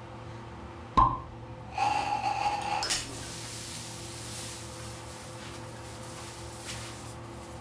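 Ignition of a carbon disulfide and nitrous oxide vapour mixture in a capped test tube: a sharp bang about a second in as the cap is blown off, then a pitched tone for about a second as the flame runs down the tube, ending in a click. The tone is the barking-dog reaction's sound.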